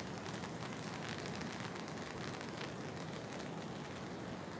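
Steady rain falling, with drops pattering on a beach umbrella overhead.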